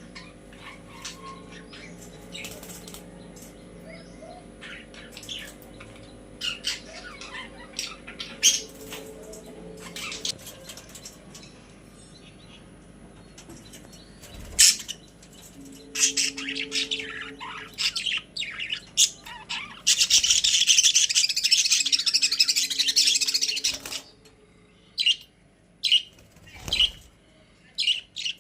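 Pet budgies chirping in short, sharp calls, with a loud, dense stretch of chatter or fluttering lasting about four seconds late on, then a few separate chirps.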